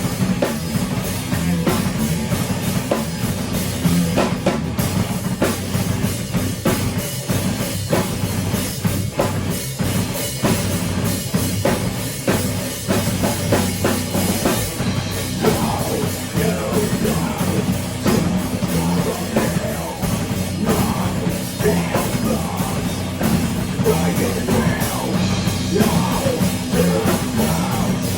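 Heavy rock band playing live: a drum kit driving a steady beat under loud distorted guitars and bass.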